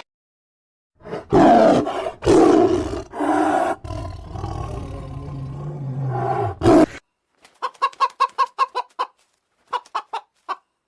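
Loud, rough calls from a large animal for about six seconds, then, after a short break, a chicken clucking in quick runs of short clucks.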